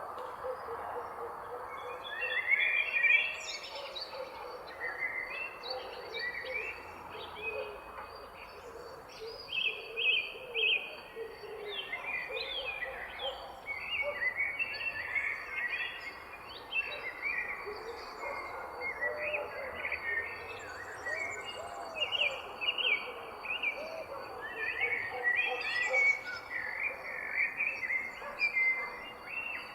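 Several songbirds singing together, a dense run of short chirping and trilling phrases with lower warbled notes beneath, over a thin steady high-pitched tone.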